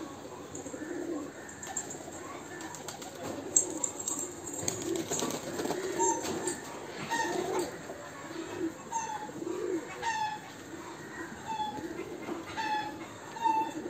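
Pigeons cooing in repeated low calls, with a flurry of wing flaps a few seconds in. From about halfway on, another bird gives short chirps roughly once a second.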